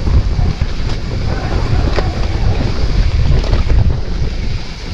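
Heavy wind buffeting the microphone of a mountain bike riding down a rocky trail, with a few sharp knocks and rattles from the bike over the rocks.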